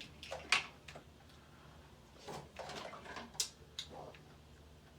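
Crab leg shells being cracked and snapped open by hand: a handful of short, sharp cracks, the sharpest about half a second in and again after about three seconds.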